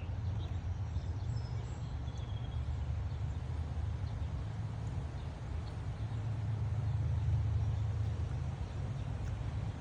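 Strong gusty wind buffeting the microphone: a steady low rumble that swells and eases, strongest around seven to eight seconds in.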